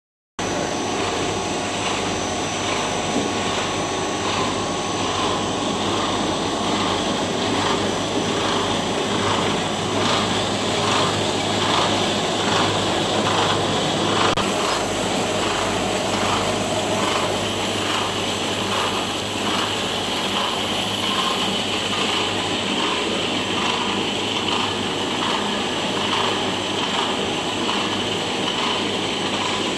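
Corn puffed-snack extruder production line running: a steady machine noise with a low hum, and a regular pulsing beat about one and a half times a second.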